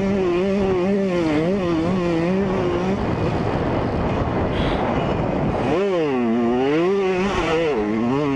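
2003 Yamaha YZ125's two-stroke engine revving up and down under the throttle on a motocross track. For a couple of seconds in the middle a rushing noise covers the engine note, then the revs drop steeply and climb again, twice.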